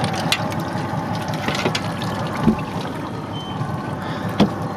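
A landing net with a netted dentex being hauled out of the sea and over a boat's deck, over a steady wash of sea and boat noise. A few knocks and clicks come through it, the loudest about halfway through and again just before the end as the net comes over the deck.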